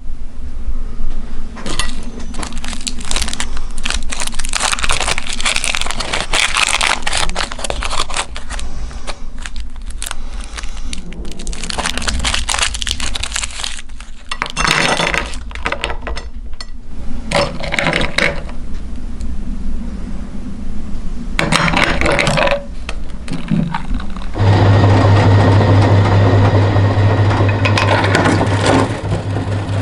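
Crackling, scraping and clattering as the hard lollipops are handled, then about 24 seconds in an electric meat grinder motor switches on with a steady low hum.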